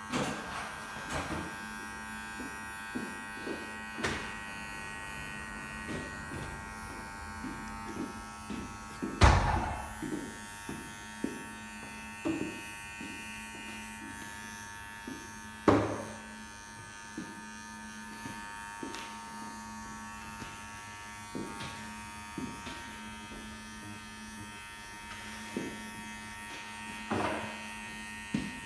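Wahl ChromStyle Pro hair clipper running with a steady buzz as it cuts a fade into short hair at the back of the neck. Short clicks and knocks come throughout, the loudest about nine and sixteen seconds in.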